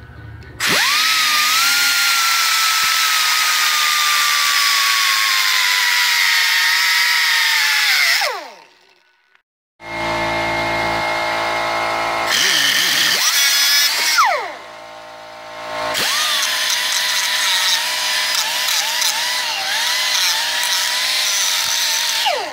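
Small grinder with a thin cut-off wheel cutting through the steel end of an engine crankshaft to shorten it, a high whine that sags in pitch as the wheel bites. About eight seconds in it is switched off and winds down, then it cuts again through the second half, the pitch dipping and recovering under load, and winds down again at the end.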